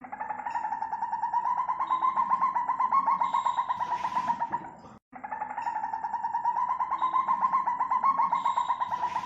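African civet calling: a fast, steady pulsing call held at one pitch. It cuts off about five seconds in and starts again identically, as a looped recording.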